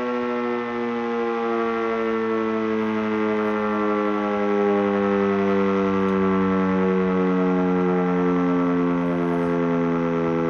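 E57 electric motor siren, a German civil defence siren, sounding one continuous loud tone whose pitch falls slowly and steadily throughout as its rotor slows.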